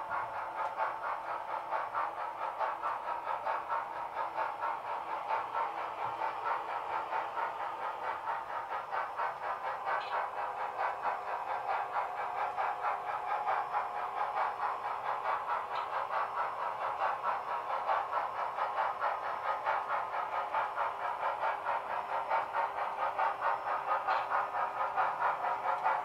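HO-scale model diesel passenger train running along the track: a steady rolling noise of wheels and motor with a fast, even clicking and a faint steady hum.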